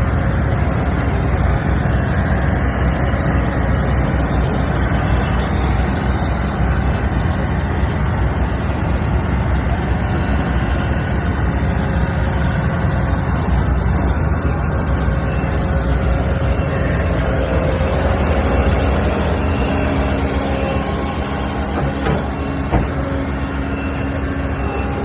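Skid steer loader's diesel engine running steadily at working revs.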